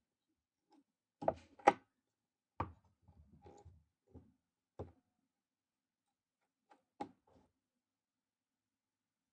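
Sharp clicks and knocks of tools and parts being handled while taking apart a vintage Pfaff industrial shoe sewing machine. Two come close together about a second in, a few lighter ones follow over the next few seconds, and a last one comes about seven seconds in.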